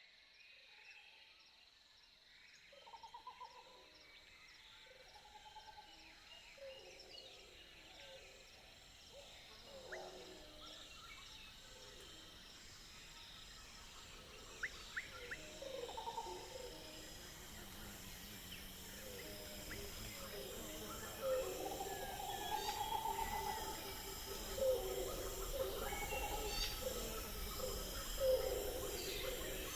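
Jungle ambience: many overlapping bird and animal calls, some hooting, over a steady high chirring, growing louder through the second half.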